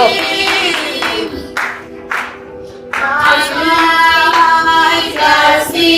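Gospel group singing with music: held voices fade out, there is a short lull, and about three seconds in the voices come back in holding a steady chord as the song restarts.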